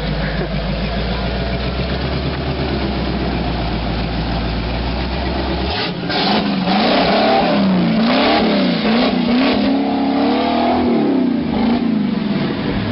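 Rock-crawling Jeep's engine running steadily at low revs, then from about six seconds in revving up and down repeatedly as the throttle is worked.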